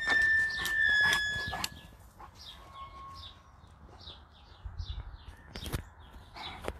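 A loud, steady high-pitched tone for about the first second and a half, with a few sharp knocks over it, then birds chirping repeatedly and a single thump near the end.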